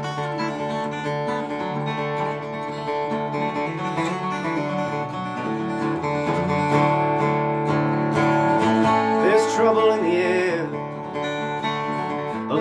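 Steel-string dreadnought acoustic guitar playing an instrumental passage of sustained, ringing chords. A wavering wordless vocal-like line rises over it about nine seconds in and fades near eleven seconds.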